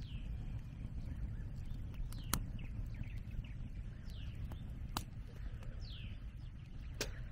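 Birds calling outdoors: about four short whistled notes, each falling in pitch, over a low steady rumble. A scrap-wood campfire burns with a few sharp crackling pops.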